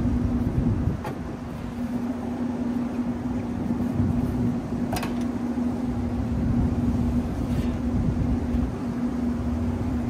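A steady mechanical hum with low rumble, typical of running rooftop equipment and wind. A few sharp metallic clicks come about a second in, near the middle and later, as the condenser fan's top grille is handled and lifted off.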